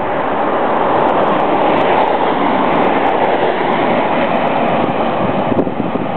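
Wind rushing over the microphone of a camera on the move, mixed with the road noise of cars driving past close by. The rush swells about a second in and eases near the end.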